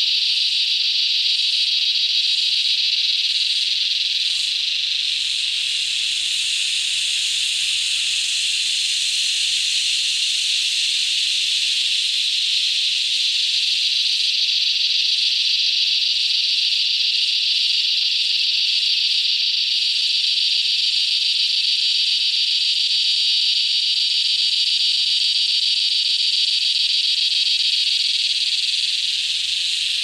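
A dense chorus of many cicadas singing at once: a loud, steady, high-pitched drone that does not let up.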